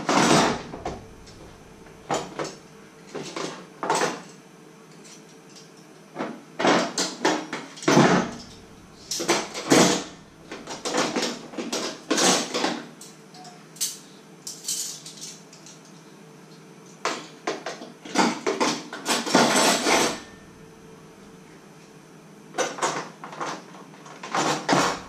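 Metal pots, pans and utensils clattering and knocking together in irregular bursts, the sound of someone rummaging among cookware, with short pauses between the clusters.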